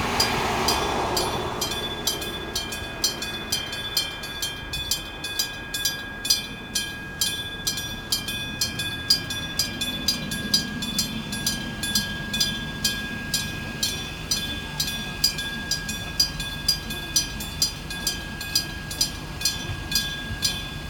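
Electric-bell railway level-crossing alarm ringing, its bell struck over and over in a fast, even rhythm. An electric train runs past during the first couple of seconds and fades away.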